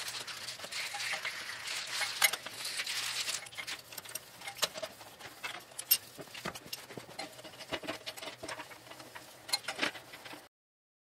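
Rapid clinks, taps and knocks of hand tools and loose metal parts as a wheel is taken off the hub of a 1930 Model A Ford front axle, with a hiss through the first few seconds. The sound cuts off abruptly near the end.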